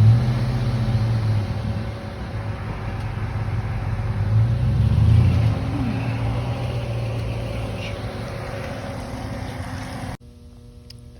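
Chevrolet Silverado pickup's engine running and revving up twice, near the start and again about five seconds in, as the truck is driven. About ten seconds in the sound cuts off abruptly to a low steady hum.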